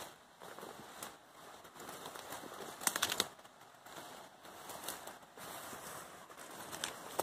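Footsteps through wet forest undergrowth and leaf litter, leaves and twigs crackling and rustling irregularly, loudest in a cluster about three seconds in.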